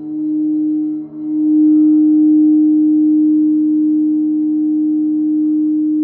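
Several crystal singing bowls tuned to D# and A# ring together in a sustained chord, the low D# tone the strongest. The sound dips sharply about a second in, then swells back and holds.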